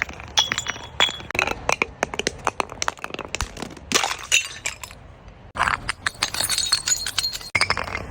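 Glass breaking and being crushed: many sharp cracks and clinking, tinkling shards, with a short lull about five seconds in and an abrupt cut about seven and a half seconds in.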